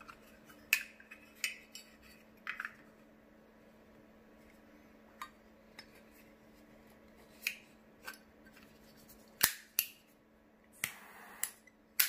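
Scattered metallic clicks and clinks from a Zippo butane torch insert being handled and fitted into its metal lighter case, with a sharper pair of clicks later on and a short scraping slide near the end.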